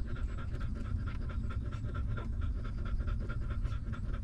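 Adult dog panting quickly and steadily.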